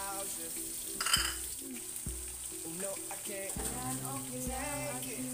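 Blue marlin steaks sizzling as they fry in a pan with garlic cloves: a steady hiss of frying, with background music. A brief louder noise about a second in.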